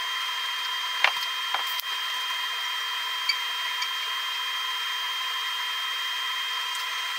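TIG welding 16-gauge stainless steel: a steady hiss with a constant high whine from the arc and welder. A couple of light ticks about a second in.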